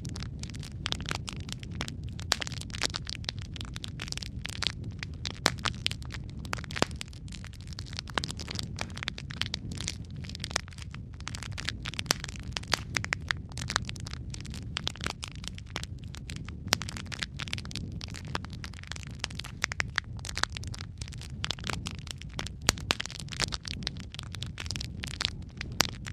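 Logs burning in a fireplace, crackling and popping continuously and irregularly over a steady low rumble of the flames.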